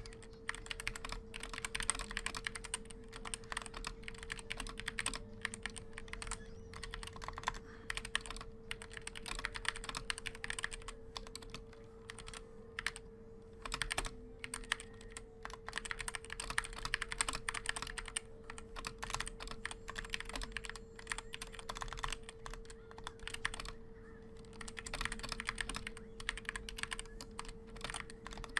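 Continuous typing on an Asceny One 60% mechanical keyboard with Gateron Brown tactile switches: quick runs of keystroke clacks, with brief pauses about twelve and twenty-three seconds in. A steady faint hum runs underneath.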